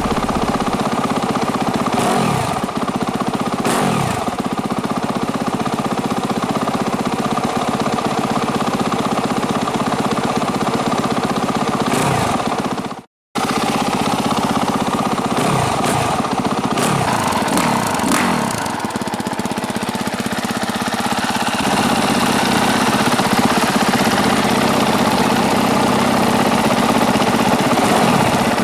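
Single-cylinder four-stroke motocross bike engine idling, with repeated throttle blips whose revs rise and fall back, several near the start and a cluster about two-thirds through. The sound drops out completely for a moment about halfway through, then settles into a steadier idle near the end.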